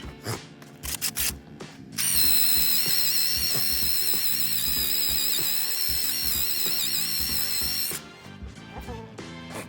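A small high-speed electric power tool runs at a steady high whine for about six seconds, starting about two seconds in and cutting off suddenly near the end, after a few short knocks. Background music with a beat plays underneath.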